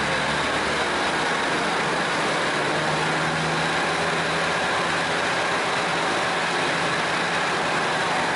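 Steady rumble of a large idling engine, with a low hum that swells for a couple of seconds in the middle.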